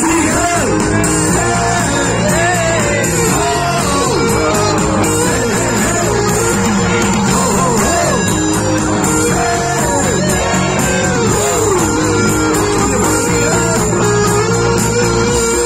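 Live pop band playing, with male vocals sung into microphones over electric bass guitar and keyboards, recorded from the audience.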